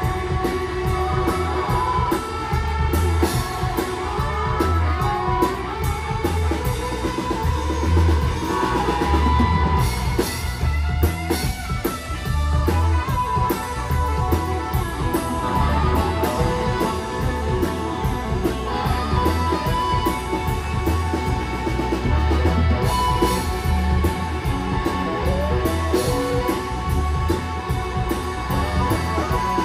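Live rock band playing an instrumental passage, with no vocals: a drum kit keeping a steady beat under electric guitar and a sustained, bending lead line.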